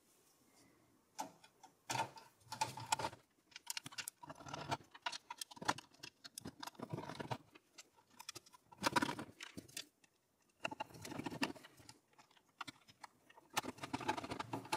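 Screwdriver driving the screws that fix a motherboard into a steel PC tower case: irregular small clicks and short scraping rasps, in clusters every second or two.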